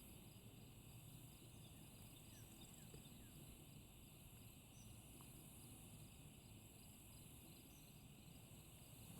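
Near silence: a faint, steady insect chorus, crickets or similar, with a few faint chirps.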